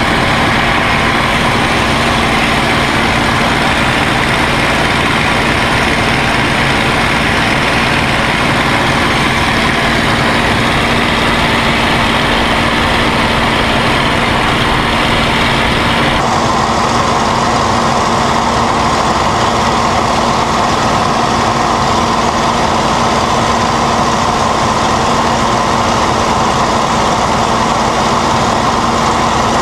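P-51D Mustang's Packard Merlin V-12 engine running loud and steady with a constant drone. About sixteen seconds in the sound abruptly turns duller as the higher hiss drops away.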